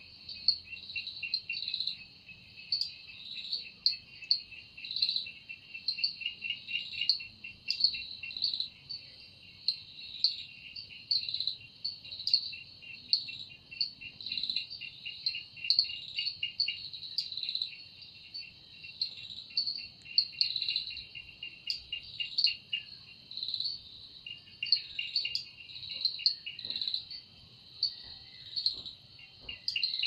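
A chorus of calling insects: one high chirp repeating steadily about twice a second over a slightly lower, fast rattling trill that comes and goes in bursts.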